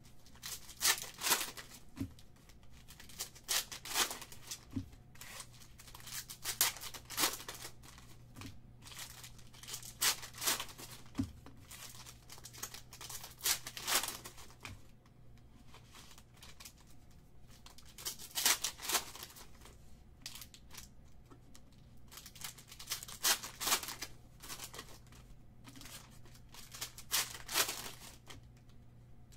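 Panini Select basketball card packs being ripped open and their wrappers crinkled, in a run of irregular sharp rips and rustles, over a faint steady low hum.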